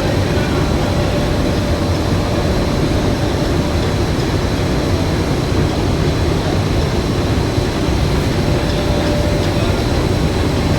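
Window de-metalize film coating machine running steadily: a continuous mechanical hum with a faint steady whine over it.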